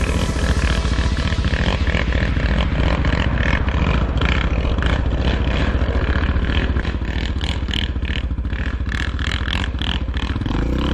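ATV engine running steadily under way, with a fast low pulse and a clatter of rattles over the rough sand trail.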